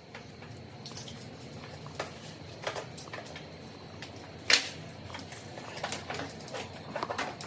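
Scattered light knocks and clicks, with one sharper knock about four and a half seconds in and a quick run of clicks near the end.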